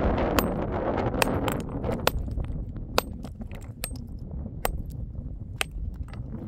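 A hammer striking stone to break up a rock: about nine sharp, ringing clinks of metal on stone, unevenly spaced at roughly one a second.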